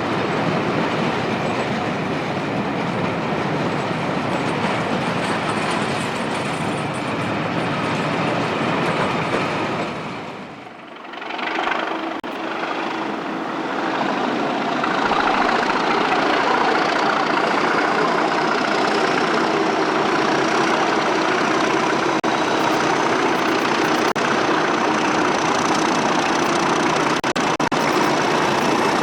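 A train hauled by Class 37 diesel locomotives running on the line, with a steady rail and engine noise. The sound drops away briefly about ten seconds in, then returns louder, with a thin whine that slowly rises in pitch.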